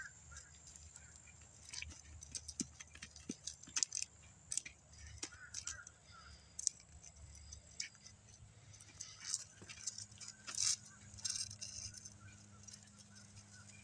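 Irregular light crackling and rustling of dry grass and leaf litter underfoot, with scattered sharp clicks, as a cat and a person walk along a dry dirt path.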